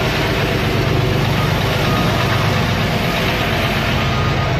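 Chevrolet C6500 box truck's Duramax diesel engine idling with a steady low rumble. A reversing alarm starts beeping about two seconds in.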